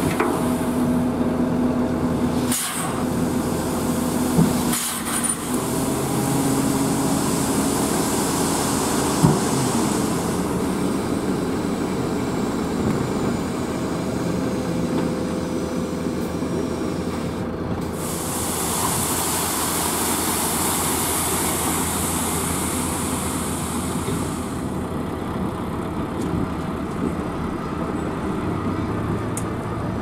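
Volvo FH 420 truck's six-cylinder diesel running steadily while tipping a load of sand with the trailer body raised. Two sharp knocks come early on, and a steady hiss rises over the engine for several seconds about two-thirds of the way through.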